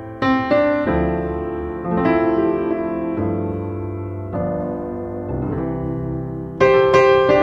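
Background piano music: slow chords, each struck and left to ring and fade, a new one about every second.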